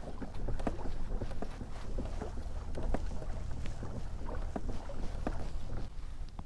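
Kayak moving across choppy water: small waves slapping and splashing against the plastic hull in irregular strokes, with a steady wind rumble on the microphone.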